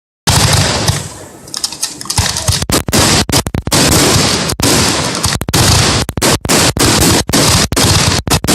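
Fireworks going off in a rapid, continuous barrage of loud bangs and crackles, starting suddenly just after the start and loud enough to overload the recording.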